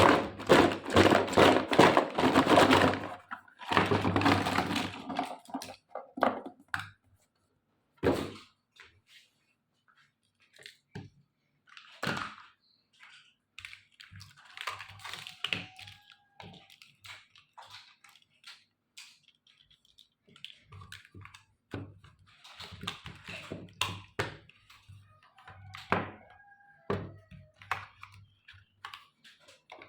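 Miniature plastic toy kitchen pieces being unboxed and handled: a dense crackling of packaging at the start and again about four seconds in, then scattered light taps, clicks and knocks of small plastic parts being set down.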